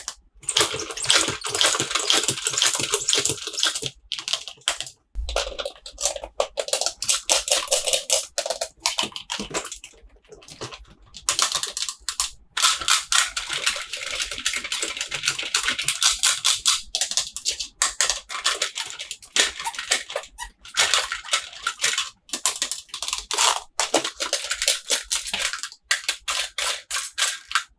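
Plastic toy packaging being handled and opened: dense crinkling and crackling with many sharp clicks, coming in stretches of several seconds with short pauses between them.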